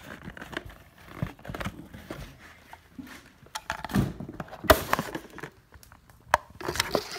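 Clear plastic packaging and cardboard being handled and crinkled, with irregular sharp clicks and knocks of plastic against box.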